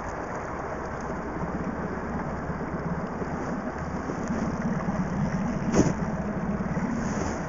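Small outboard motor on the fishing boat running steadily at low revs, growing a little louder over the last few seconds. A single sharp knock comes near the end.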